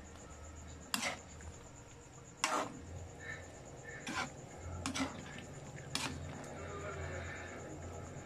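A cooking spoon knocking and scraping against a metal pan while stirring a thick vegetable and pork stew, about six sharp clacks spread out, over a low steady hum.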